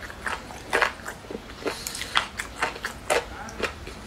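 A person chewing braised chicken foot tendons, with sharp crunches about two or three a second.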